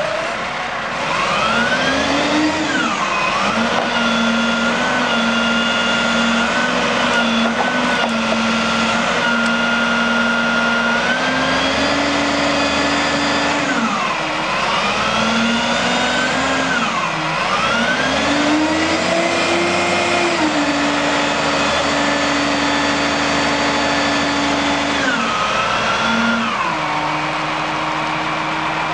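Kalmar 15-tonne forklift's diesel engine running under load. Its speed rises and falls several times, holding steady between changes, with a higher whine that follows the engine's pitch.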